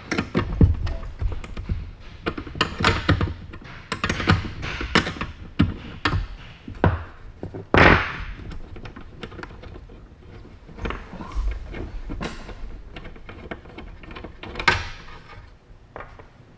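Handling noise: an irregular string of knocks, clunks and scrapes as an opened plasma cutter and its torch lead are moved and turned around on a bench, with one louder clunk about eight seconds in.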